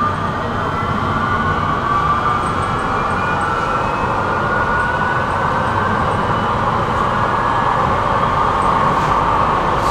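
Tram running along the track: a steady rumble of wheels on rails with a whine from the electric drive that rises slowly in pitch.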